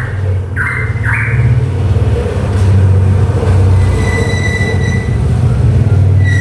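Cucak pantai songbird giving two short harsh notes, then a loud, steady low rumble with a thin high steady squeal about four seconds in.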